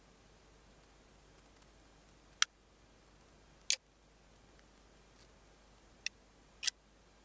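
Four short, sharp clicks against quiet room tone: one about two and a half seconds in, another about a second later, and two close together near the end.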